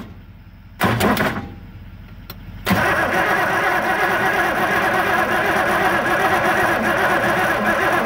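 John Deere scraper's diesel engine being cranked over by its starter motor in an even rhythm, from just under three seconds in, after a short noise about a second in. It turns over without starting: a no-start that the mechanic traces to the injection pump delivering no fuel.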